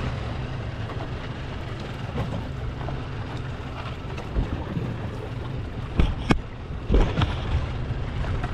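A boat's engine running steadily at low revs, with wind noise on the microphone; a few sharp knocks come about six and seven seconds in.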